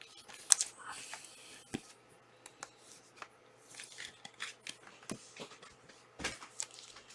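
Trading cards being handled and flipped through: a scattered series of light clicks, rustles and scrapes, the sharpest click about half a second in.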